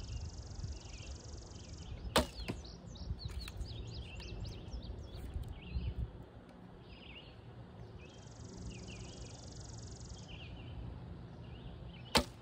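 Two shots from a Javaman Elkheart longbow, each a single sharp snap of the string on release, the first about two seconds in and the second near the end.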